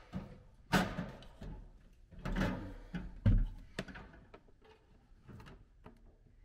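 Someone climbing a wooden ladder up into an attic: several heavy wooden thumps and knocks from footsteps and handholds in the first four seconds, then lighter knocks and shuffling.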